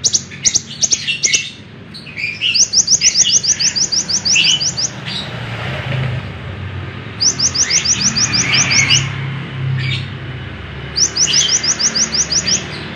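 Konin (kolibri ninja), a sunbird, singing: sharp high chirps, then three fast trills of evenly repeated high notes, each about two seconds long.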